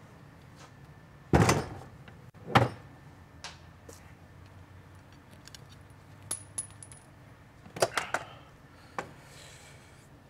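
Metal clanking from steel hand tools and bellhousing bolts. There are two sharp metallic knocks about a second and a half in and again a second later, then lighter clinks, and a short cluster of clanks near the end.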